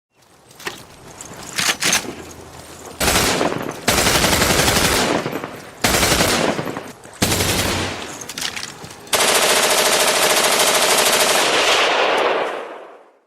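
Gunfire sound effect: a few single shots, then several bursts of rapid fire, ending in one long burst of about three seconds that fades away.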